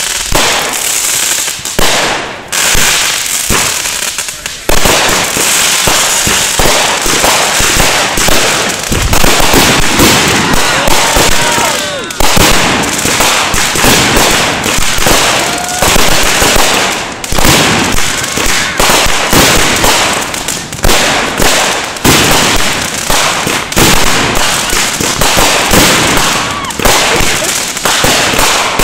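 Aerial fireworks going off in rapid succession, a dense crackling and popping of bursts that thickens into a near-continuous barrage about four seconds in.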